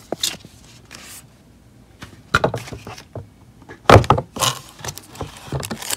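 Cardboard box and its packed contents being handled: an irregular series of knocks, bumps and rustles, the loudest about four seconds in.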